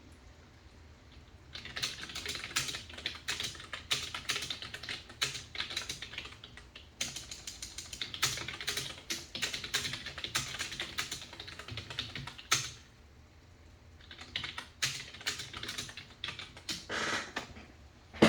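Fast typing on a keyboard: runs of rapid key clicks that start about a second and a half in, stop briefly about two-thirds of the way through, then pick up again.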